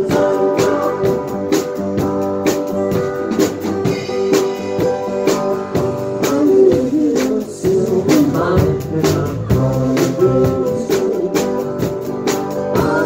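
Live rock band playing: drum kit keeping a steady beat with cymbal hits, electric guitars, and a singing voice, loud and close to the drums.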